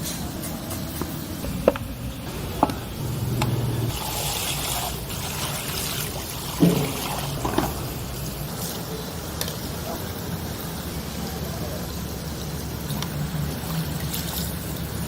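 Busy food-stall ambience: a steady background wash with a few sharp knocks and clatters, two close together early on and two more about halfway through.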